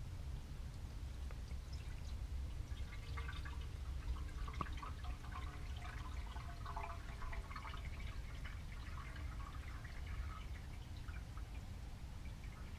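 Oil poured from a bottle into an engine's oil filler, glugging and gurgling, starting about two and a half seconds in and tapering off near the end.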